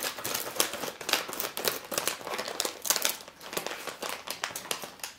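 Snack packet wrapper crinkling and crackling as it is handled and cut open with scissors: a dense, irregular run of crackles.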